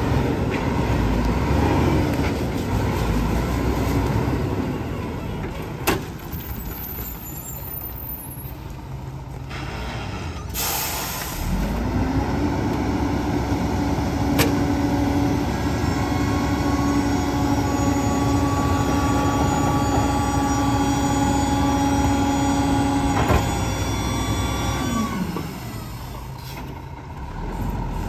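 Mack RD garbage truck's diesel engine running, with a sharp air brake hiss about ten seconds in. The engine then rises to a steady raised idle for about thirteen seconds as the rear-loader's hydraulic packer compacts manually loaded trash, then drops back near the end. A few single knocks of bags landing in the hopper.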